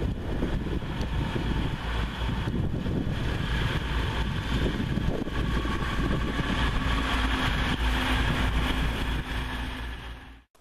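DB Class 612 diesel multiple unit running past, its diesel engines and wheels giving a loud, steady deep sound, with a held hum joining in during the second half. The sound fades away quickly near the end.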